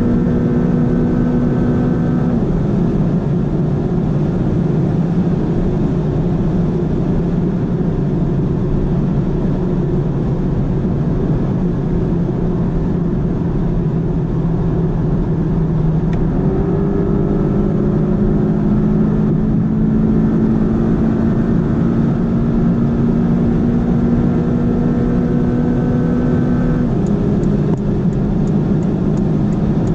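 Porsche 718 Cayman GTS engine under way at high speed, heard from inside the cabin over wind and road noise. The high engine note drops to a lower one about two seconds in as the car goes from fifth into sixth gear, holds there, then rises again from about halfway as the car pulls on in sixth toward 250 km/h.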